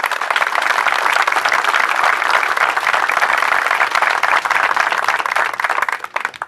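Audience applauding: a crowd's sustained clapping that starts at once, holds steady, and dies away near the end.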